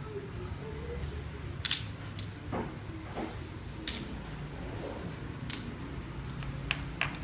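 Sharp clicks and taps of small parts and tools being handled as a laptop is taken apart, about six of them, over a steady low hum.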